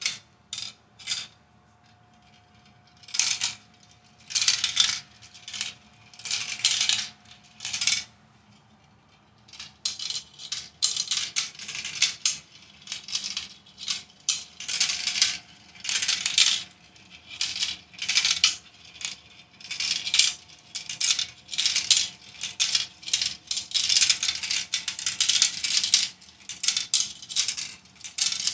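Marbles clattering and rattling down the tracks of a toy 3D marble run in many short runs. It is sparse at first, goes quiet for a moment about eight seconds in, then keeps up almost without a break.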